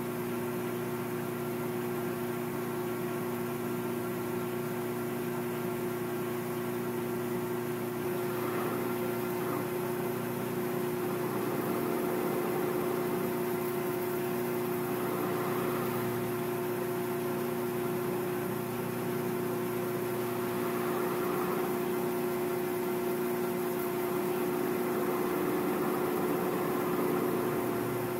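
Metal lathe running steadily with a steady hum from its drive, while the round carbide insert of a radius cutter cuts the end of a spinning 6061 aluminum rod. The cutting noise swells and eases as the cutter is swept across the work and grows somewhat louder from about eight seconds in.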